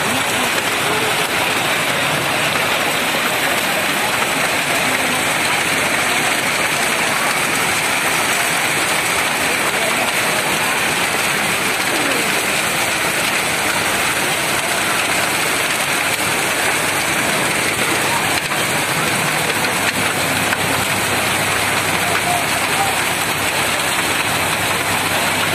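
Hailstorm: small white hailstones and heavy rain falling steadily on wet pavement and parked motorbikes, a dense, even hiss with no let-up.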